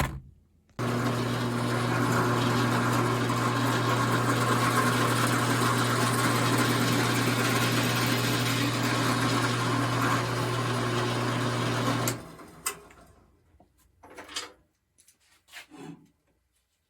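Drill press motor running steadily with a constant low hum while drilling a hole in wood. It cuts off about twelve seconds in and winds down, followed by a few light knocks.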